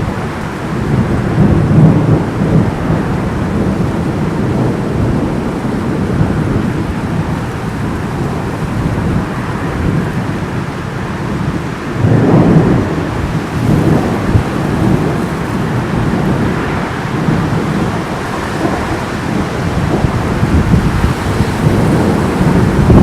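Thunderstorm: rumbling thunder over steady rain and gusty wind, with a louder roll of thunder about halfway through.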